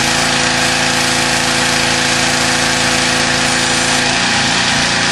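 Campbell Hausfeld pressure washer engine running at a steady speed.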